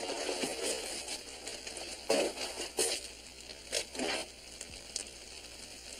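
Rustling and crinkling of material being handled, with a few sharp rustles about two, three and four seconds in, over a steady hiss.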